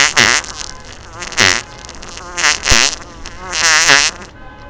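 Prank fart sound effects: four loud, rasping blasts about a second apart, each wavering in pitch and the last the longest. They are chainsaw-like and harsh, overloaded by a microphone held too close.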